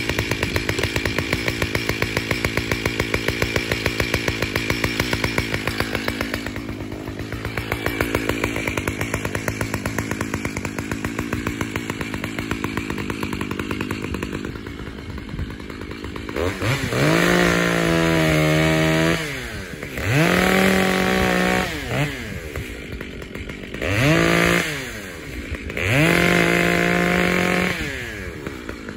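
Makita (Dolmar) two-stroke chainsaw idling steadily, growing fainter as it is carried away. About two-thirds of the way in it is revved to full throttle four times, each burst one to three seconds long, rising, holding and dropping back to idle, as it cuts into small trees.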